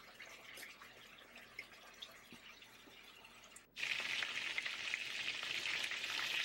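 Chicken thighs browning skin side down in olive oil in a frying pan on medium-high heat. A faint crackling sizzle jumps abruptly, a little under four seconds in, to a loud, steady sizzle.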